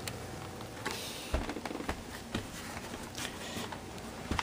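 A few faint knocks and clicks over a low steady background: handling noise as the computer case is turned around.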